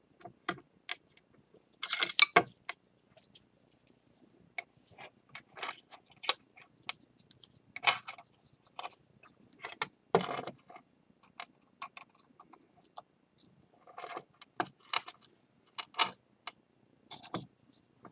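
Scattered light clicks, taps and short scrapes of broken ceramic bowl pieces being handled and fitted together, two louder scrapes about 2 and 10 seconds in.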